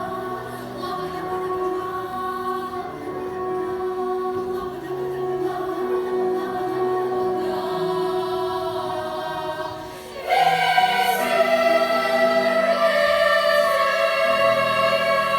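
Choir singing in held chords; about ten seconds in the sound dips for a moment, then the choir comes in louder on higher notes.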